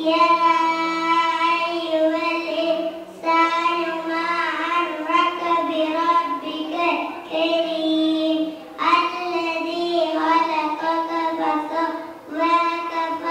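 A young girl reciting the Quran in a melodic, chanted style into a microphone. Her long, drawn-out phrases have brief breaks for breath.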